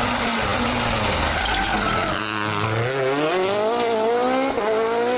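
Race car engine running and revving, its pitch sinking and then climbing steadily through the second half.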